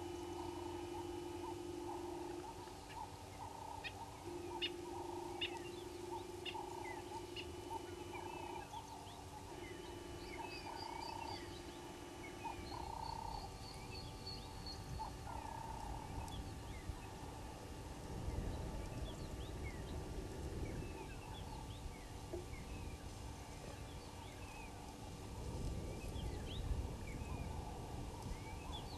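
Wild birds chirping and calling many times, with a short high trill a little before the middle, over a steady low hum. Two low rumbles come in the second half.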